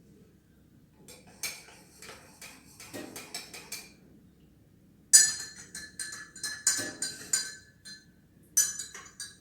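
A spoon clinking against the inside of a cup while stirring honey and lemon into the strained kadha: a few light taps at first, then from about five seconds in a run of quick, ringing clinks.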